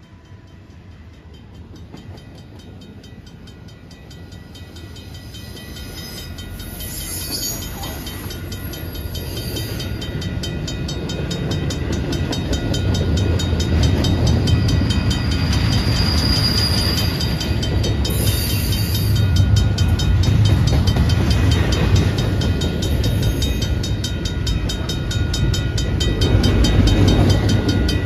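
CN freight train led by GE ET44AC diesel locomotives approaching slowly and rolling past, its low rumble growing louder over the first dozen seconds and then holding. A crossing's mechanical bell rings steadily over it.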